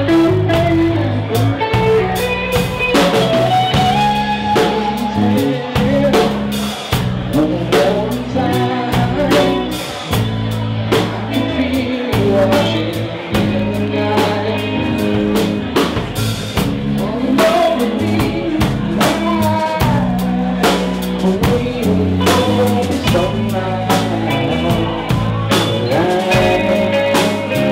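Live rock band playing: electric guitars, bass and drum kit with a steady beat, recorded on a camera's built-in mic.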